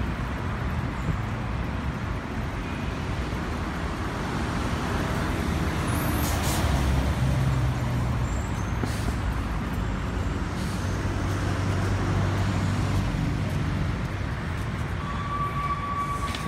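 Urban road traffic: motor vehicle engines running and passing, heard as a steady wash of noise with a low rumble that swells and fades. A brief high tone sounds near the end.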